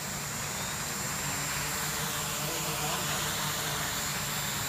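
Small 3D-printed quadcopter's electric motors and propellers buzzing steadily as it hovers low over the ground.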